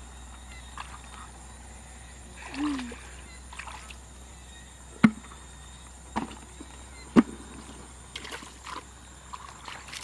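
Muddy water sloshing and splashing as a person wades and scoops in a shallow ditch. Two sharp knocks about five and seven seconds in are the loudest sounds.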